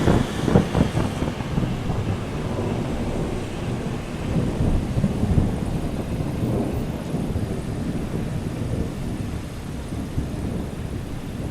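Thunder: a few sharp cracks in the first second or so give way to a long, low rolling rumble, over steady rain.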